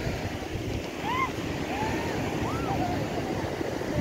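Steady wash of sea surf and wind on the microphone. Between about one and three seconds in come a few short, high, rising-and-falling calls.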